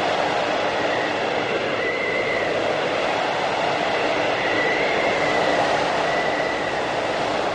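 Whiteout blizzard wind: a steady, dense rush of wind, with a faint high whistle that comes and goes and wavers in pitch.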